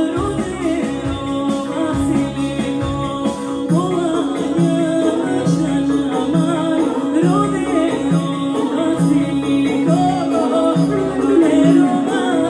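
Live band playing Albanian folk dance music: a winding, ornamented melody over a held low drone note and a steady bass beat.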